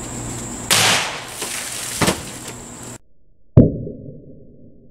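A .22 rifle fires a high-velocity .22 Long Rifle round: a sharp crack that fades over about a second, with a smaller crack about a second later. Then the shot is heard again much louder and close up at the jugs, a very sharp crack that dies away quickly.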